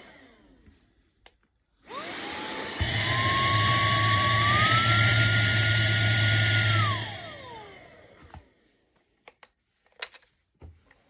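TANYO cordless handheld vacuum cleaner switched on about two seconds in, its motor whine rising as it spins up and stepping higher about halfway, consistent with a switch to its faster speed, then winding down after about seven seconds. Its motor is also just winding down at the start, and a few light clicks and taps follow near the end.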